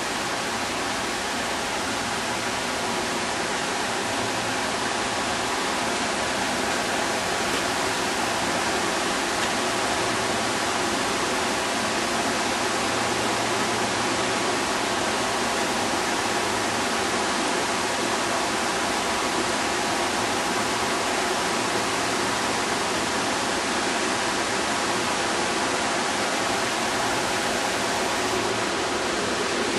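Ornamental fountain splashing steadily as its water jet and tiered pools pour, a loud, even rush of water.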